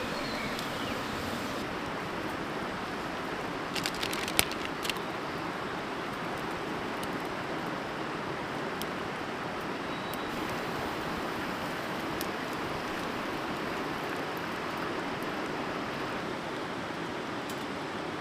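River water flowing steadily, with a few light clicks or knocks about four seconds in.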